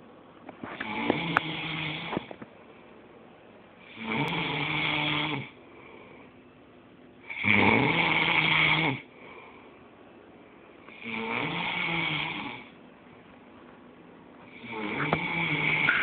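A man snoring in deep sleep: five long snores, each lasting about a second and a half, coming about every three and a half seconds.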